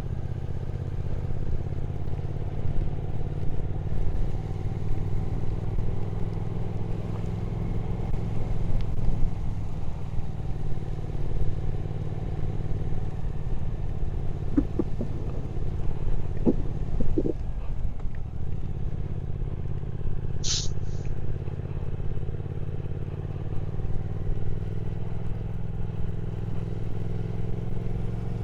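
Triumph Speed Twin 1200's parallel-twin engine running at steady cruising revs while the motorcycle is ridden. A few light clicks come around the middle, and a short high double chirp about two-thirds of the way through.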